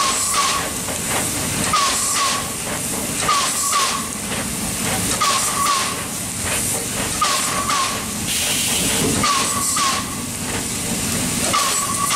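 Small steam locomotive running under steam: a steady hiss with regular exhaust beats, and a short squeaky double chirp from the engine repeating about every two seconds.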